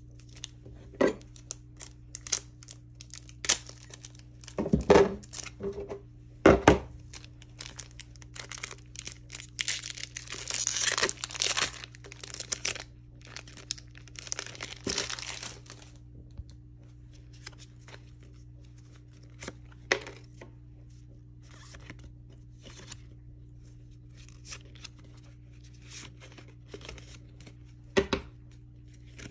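Foil wrapper of a Pokémon booster pack crinkling and tearing open, preceded by several sharp taps and knocks. Afterwards, light clicks of trading cards being handled, with one more knock near the end.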